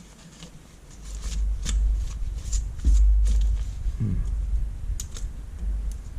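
Thin plastic LCD diffusion sheet being handled and wiped clean, with crinkling rustles and small clicks throughout. Over it, from about a second in, runs a low rumble that is the loudest part.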